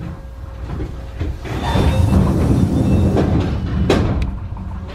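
A stopped electric train's steady hum, with rustling close to the microphone as someone brushes past it, and a sharp knock near the end of the rustling.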